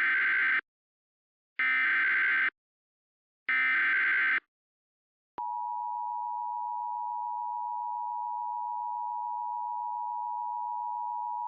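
Emergency Alert System activation tones: three bursts of SAME digital header data about a second apart, each lasting roughly a second, then the steady two-tone EAS attention signal starting about five seconds in.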